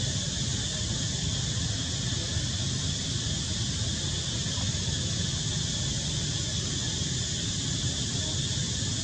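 Steady outdoor background noise: an even hiss with a high band and a low rumble underneath, with no distinct calls or splashes.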